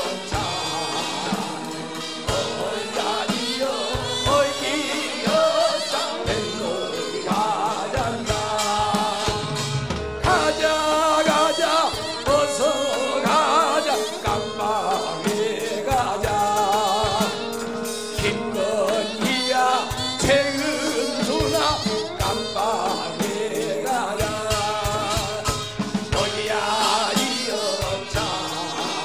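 Live Korean pansori-style song: a male voice sings the lead and other voices join in, over a band with drums beating time and a steady held note underneath.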